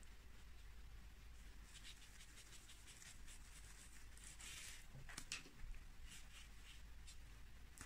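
Faint brushing and scratching of a watercolour brush stroking across damp watercolour paper, a run of short strokes, with a couple of light clicks a little past the middle.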